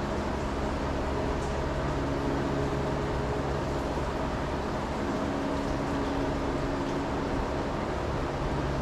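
Greenhouse ventilation or heating fans running: a steady hum with a few held tones over an even hiss.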